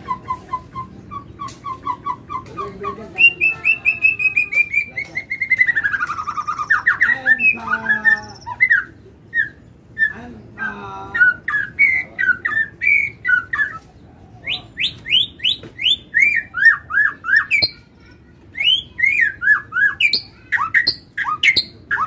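Caged songbird singing a varied song. It opens with a fast run of repeated short notes, moves into a long falling slurred phrase, then changes to mixed whistles and chirps and quick series of rising notes, with a brief pause near the end before it starts again.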